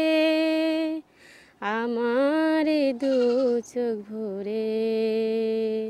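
A woman singing unaccompanied in long held notes: three sung phrases separated by short breaths, the last note held steady for about two seconds.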